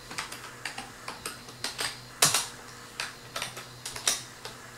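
Typing on an old beige PC keyboard: a quick, irregular string of key clicks as a command is entered, with two louder key strikes about two seconds in and about four seconds in.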